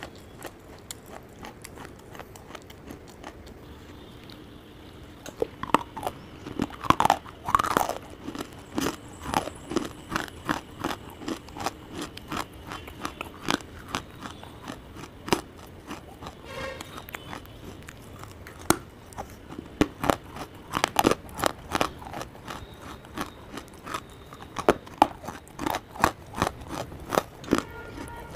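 Close-miked crunching and chewing of hard lumps of baked clay, the mouth right at a small clip-on microphone. Sharp, irregular crunches come thick from about five seconds in, after softer chewing clicks.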